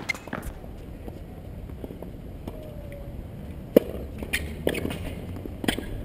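Tennis racket striking a ball with a sharp pop a little past halfway through, among several lighter knocks on the hard court.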